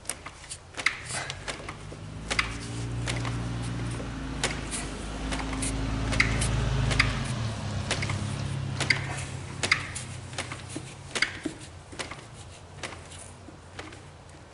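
Scattered light taps and clicks of a new door weather strip being pressed into the kerf slot in a door's edge with a flat tool. A low hum swells in from about two seconds in and stops abruptly a little past seven seconds.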